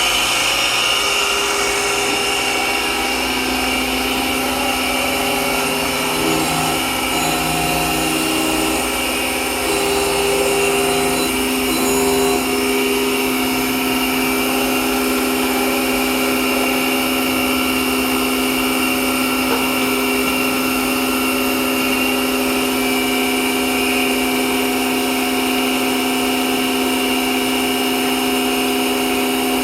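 DoAll semi-automatic surface grinder running steadily, its wheel spinning under power, with steady tones in the running noise and a low hum that comes in about three seconds in.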